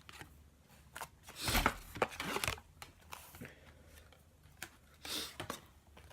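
Football trading cards being handled and flipped through by hand: light clicks of card edges and two short rustling, scraping bursts as cards slide over one another, the louder about a second and a half in and another near five seconds.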